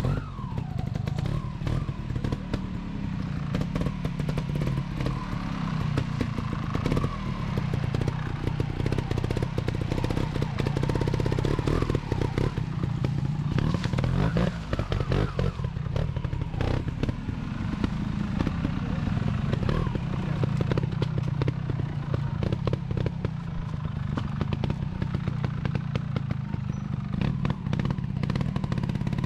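Two-stroke single-cylinder engine of a TRS RR 300 sidecar trials outfit running and revving up and down as it is ridden slowly through a trials section, with frequent knocks and clatter from the outfit.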